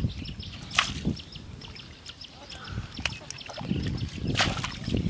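Muddy water scooped up with a steel bowl and tipped out, splashing onto the mud: short splashes about a second in and again near three seconds, then a longer spell of pouring and splashing in the second half.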